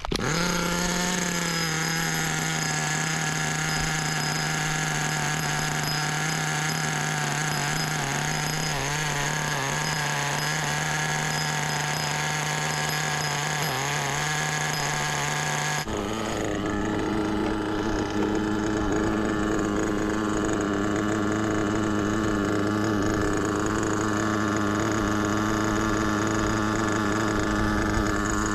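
The two-stroke glow-fuel nitro engine of an HPI WR8 radio-controlled rally car, running at a steady high pitch. About halfway through it cuts abruptly to a lower, steady drone.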